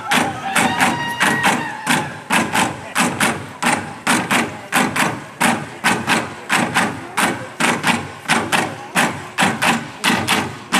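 A large group chanting a song together over sharp, evenly spaced beats, about two a second.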